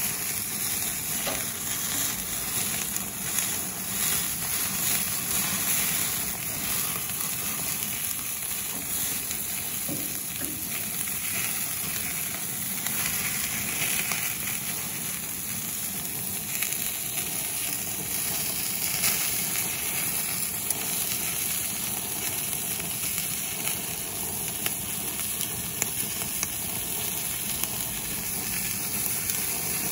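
Baby octopus sizzling and crackling on a hot gas grill over open flare-up flames, a steady frying hiss with scattered sharp little clicks.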